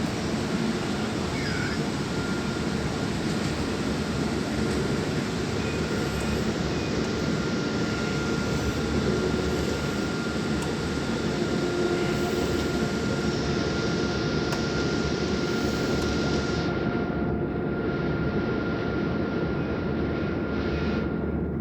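Tram running along its track, heard from inside the passenger car: a steady rolling rumble and hiss with a faint, thin, steady whine. The hiss softens about three-quarters of the way through.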